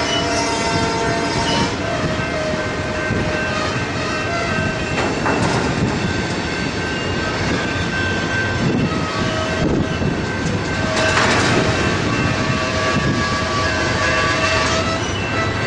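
BNSF ribbon-rail train rolling slowly past: flatcars loaded with long steel rail strings clatter over the track, with squealing tones that come and go.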